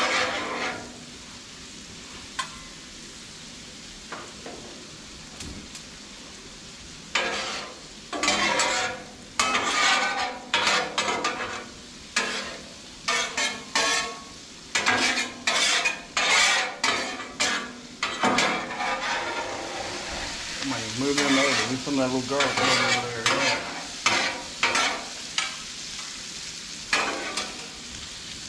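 Metal spatulas scraping and clacking on the steel of a Blackstone flat-top griddle as small potatoes are tossed, over a steady sizzle of them frying in butter. The scrapes come in quick runs, few in the first several seconds and frequent after that.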